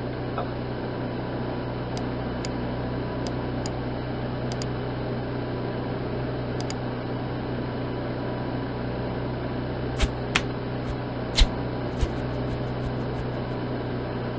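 Steady electrical hum and hiss, like a computer fan, with a few low tones in it. Scattered sharp clicks sound over it, a few louder ones near the end followed by a quick run of light clicks.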